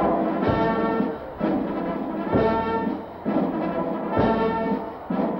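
Brass band music: held brass chords that change every second or two, with a low drum beat under several of them.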